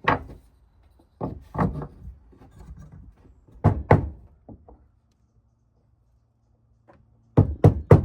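Hand-carving blows on a block of cedar: sharp wooden knocks in uneven groups, a pause, then a quick run of blows near the end.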